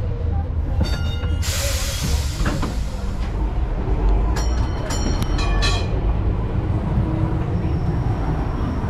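1925 W2-class electric tram rolling along its rails with a steady low rumble. A hiss comes about a second and a half in, and a quick run of metallic ringing strokes sounds near the middle.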